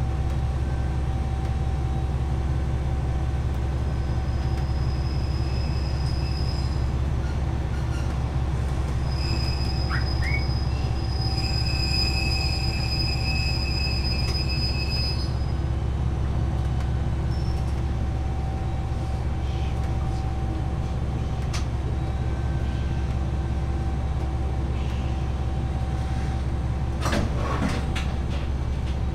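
Diesel railcar running along the line, a steady low engine and running rumble heard from the cab. High-pitched wheel squeal rises and fades from about four to fifteen seconds in, typical of flanges on a curve, and a short rattle of clicks comes near the end.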